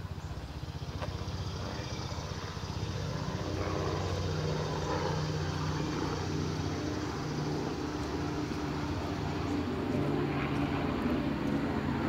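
A steady engine drone, a low hum made of several held tones, that grows louder about three seconds in and stays up.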